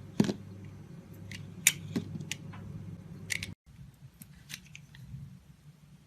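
A blade cutting into a bar of soap: a series of sharp, crisp snaps and crackles as it slices through. The sound breaks off abruptly a little past halfway, and fainter snaps follow.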